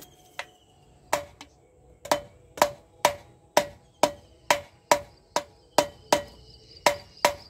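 Plastic swing arm bush of a Bajaj Pulsar being tapped into the swing arm's pivot tube: a steady run of light knocks, about two a second, each with a short metallic ring, gently driving the bush fully home.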